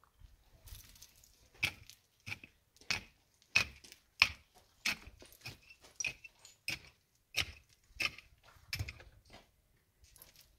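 Footsteps crunching on dry, stony ground at a steady walking pace, about one and a half steps a second, starting about a second and a half in and stopping shortly before the end.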